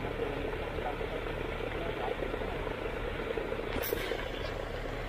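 Steady mechanical drone of a pond aerator's motor churning the water, with a brief scuffing noise about four seconds in.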